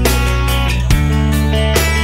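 Background music with strummed guitar and a steady bass.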